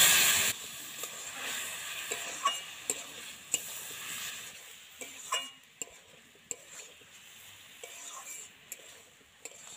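Metal spatula stir-frying fresh mushrooms with potatoes and spices in a steel wok, the food sizzling loudly for the first half second and then more softly, with sharp clinks of the spatula against the pan about once a second. This is the koshano stage of a Bengali mushroom curry, the freshly added mushrooms being fried down in the spice paste.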